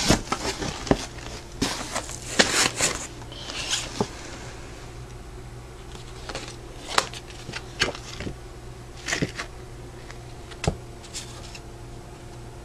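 A cardboard shipping box being opened and its contents handled: cardboard flaps and a paper flyer rustle and crinkle, with scattered sharp taps. It is busiest in the first few seconds, then comes in separate crinkles. A faint steady hum runs underneath.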